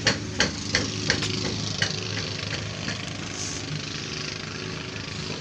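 A motor runs with a steady hum. A few sharp knocks sound during the first two seconds.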